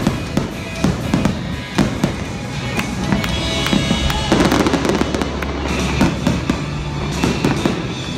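Aerial fireworks display, shells bursting and crackling one after another in quick succession, with music playing underneath.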